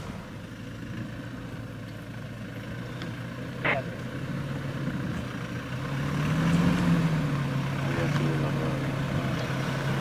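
4x4 pickup engine running at low revs as it crawls over a rutted dirt track, growing louder from about six seconds in with a brief rise in revs. There is one short, sharp sound near the middle.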